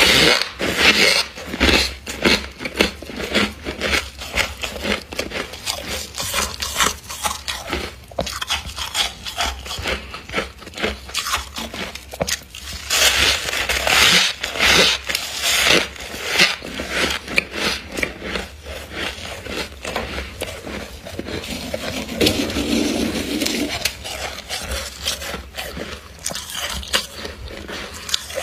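Crisp, rapid crunching of frost chunks from a humidifier, many sharp irregular crunches with stretches of grainy scraping.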